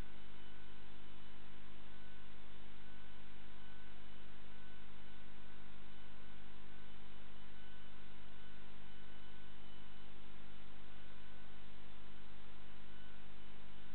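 Steady electrical hum with a constant hiss underneath, unchanging throughout.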